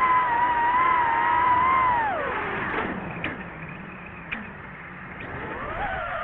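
DJI FPV drone's motors and propellers whining steadily, then dropping sharply in pitch and level about two seconds in as the throttle is cut. They spin back up with a rising whine near the end.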